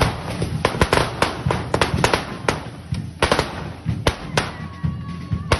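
Correfoc fireworks: spark-spraying pyrotechnics going off with many sharp firecracker bangs at irregular intervals. The bangs come thickest in the first half, with a few single loud cracks later on.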